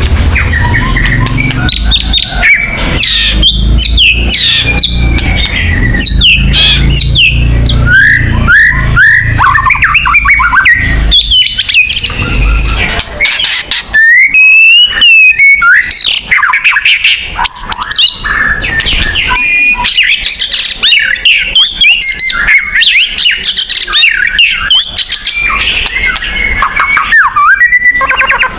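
White-rumped shama (murai batu) singing without a break in full, lively song. It is a rapid, varied run of loud whistles, rising and falling slurs and chattering trills, with a longer warbled note about halfway through. A low rumble lies underneath for the first half.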